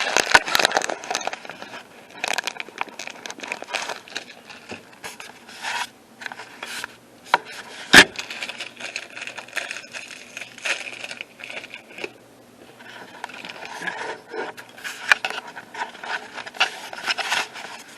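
Plastic snack-bar wrapper crinkling and rustling as it is handled and torn open, in irregular bursts, with one sharp click about eight seconds in.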